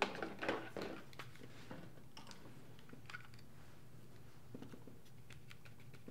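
Powder compact and makeup brush being handled: quiet light clicks and taps, a quick cluster in the first second, then a few scattered single ones.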